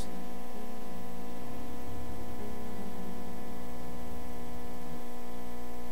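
Steady electrical mains hum and buzz: a stack of unchanging tones that does not vary in level.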